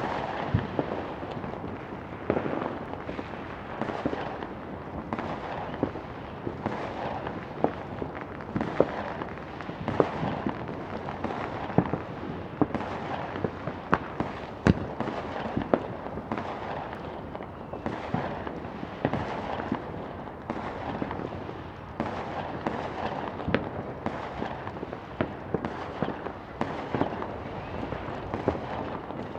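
Battle ambience of distant gunfire: scattered shots cracking at irregular intervals, sometimes in quick strings, over a continuous low rumble of distant battle.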